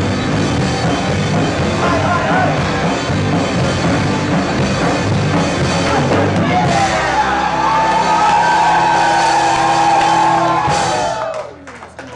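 Live rock band playing loud with drums. About seven seconds in it closes on a long held note over sustained chords, then the music stops near the end.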